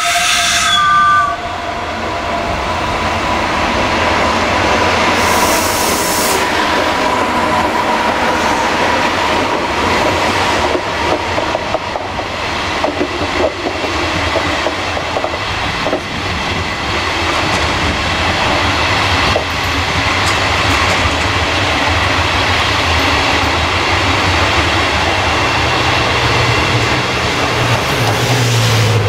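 Electric train passing close by on the line, wheels clattering and rumbling steadily. A horn cuts off about a second in.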